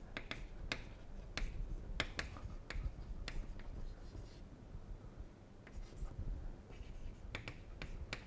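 Chalk writing on a chalkboard: a run of short, irregular taps and scratches as the letters are formed.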